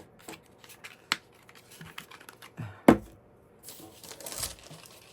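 Handling sounds on a craft work table: scattered light clicks and taps, one louder knock about three seconds in, then a brief rustle.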